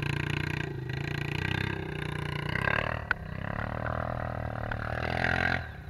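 ATV engine running and revving in deep snow, its pitch shifting up and down with the throttle, with a change in the engine note about halfway through.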